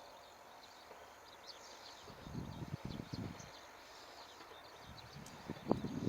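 Quiet outdoor ambience with continual faint high chirping, and two clusters of low, irregular thumps, about two seconds in and again near the end.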